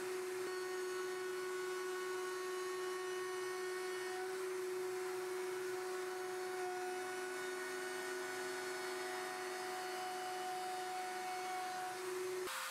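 Table-mounted router spinning a bearing-guided bit while an MDF board is fed past it, cutting a recess along the edge. The motor makes a steady whine with no marked changes in load.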